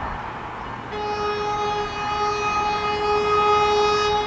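An NJ Transit River Line Stadler GTW diesel light rail train sounds its horn as it approaches, in one long steady note that starts about a second in and lasts about three seconds. The train's running noise sits beneath it.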